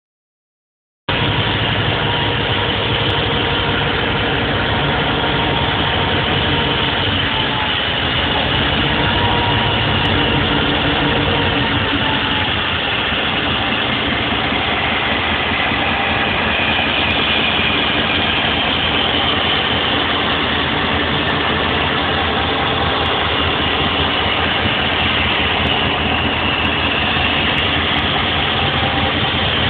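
Diesel freight locomotive's engine running as it moves past switching covered hopper cars, a loud, steady din that starts about a second in.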